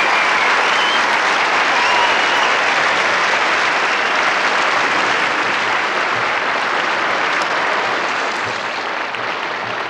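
Audience applauding steadily, slowly dying down near the end.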